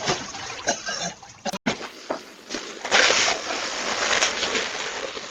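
Splashing, spattering noise that starts suddenly about three seconds in and keeps on, after a few scattered knocks.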